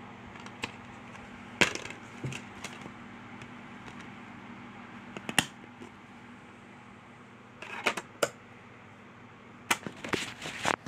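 Plastic DVD case being handled and opened and the disc taken out: a series of sharp clicks and snaps, the loudest about two seconds and five seconds in, with clusters of clatter near eight and ten seconds in. A low steady hum runs underneath.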